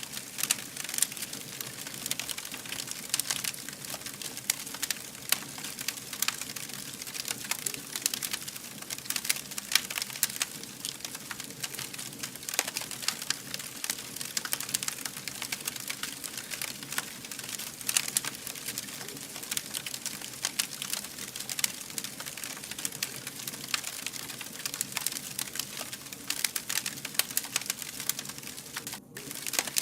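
Wood fire burning with dense, continuous crackling and popping, many small snaps a second with some louder pops among them, and a brief dropout just before the end.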